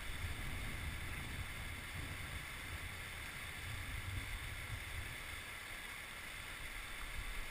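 River water rushing steadily through shallow rapids, with a low fluctuating rumble.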